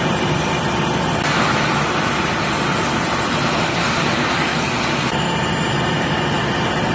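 Fire apparatus engine running steadily, with a steady low drone. From about a second in until about five seconds in, a louder hissing rush lies over it.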